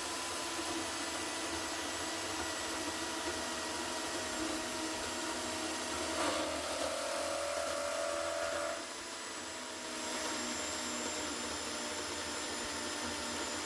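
Metal-cutting band saw running steadily as its blade works through a piece of steel. A clearer tone rises over the steady noise about six seconds in and stops near nine seconds in, when the sound drops a little.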